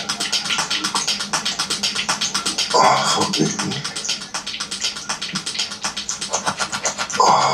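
A prank sound track played loudly from a TV: fast, even slapping or flapping pulses, about eight a second, with a short louder vocal burst about three seconds in and again near the end.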